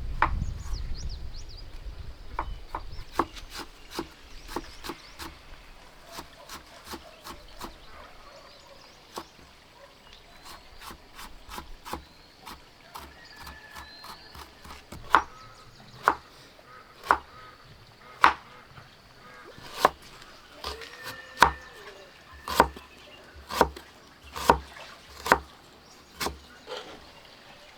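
A series of sharp wooden-sounding knocks. They are sparse and faint at first, then louder and roughly one a second through the second half. Faint high chirps sound in the first half.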